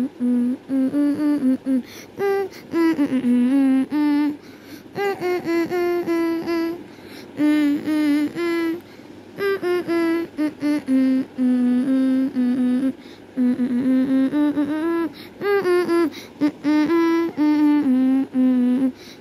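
A voice humming a wordless tune in short, stepping notes with brief pauses between phrases.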